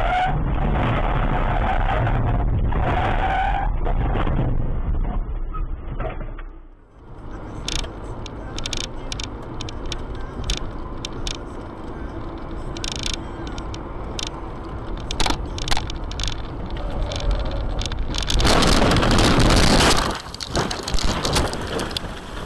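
Car road and engine noise heard from inside moving cars, with scattered sharp clicks. Near the end comes a loud rush of noise lasting about a second and a half.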